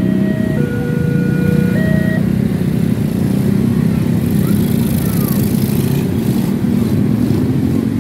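Many small motorcycle engines running and pulling away together. For the first two seconds the crossing's electronic warning alarm sounds over them, a two-pitch tone alternating about once a second, which then stops.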